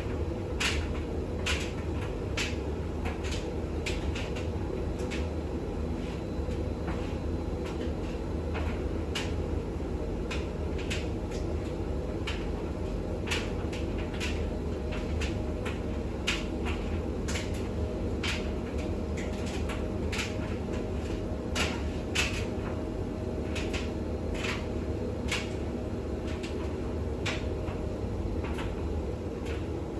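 Bosch WAX32GH1 washing machine with a full load in the intermediate spin stage of a Cottons wash: a steady low running hum from the motor and drum, with frequent irregular clicks and knocks from the drum.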